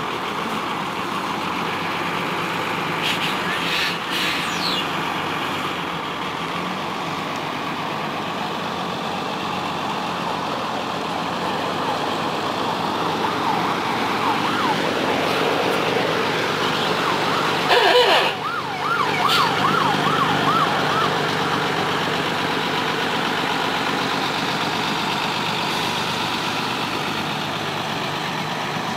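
Mercedes-Benz OH1621L school bus and L1114 truck diesel engines running as the vehicles manoeuvre at low speed. A fast warbling siren-like tone sounds twice past the middle, the second time for a few seconds, just after a short loud burst.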